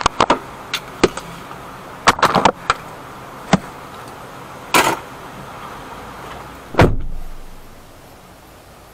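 Gear being handled inside a car, with a series of clicks and knocks, then a car door shut with a loud thump about seven seconds in, after which the outside noise drops away to a quiet cabin hush.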